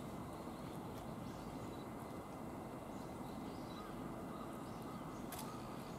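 Steady outdoor background noise, a low even hiss, with a few faint clicks.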